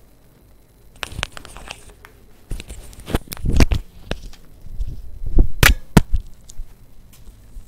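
Handling noise close to the microphone: an irregular run of knocks, clicks and rustling, with the loudest knocks about three and a half, five and a half and six seconds in.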